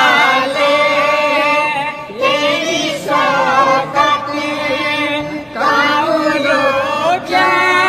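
A young boy singing a devotional song in long held phrases with wavering, ornamented pitch, taking short breaths between phrases.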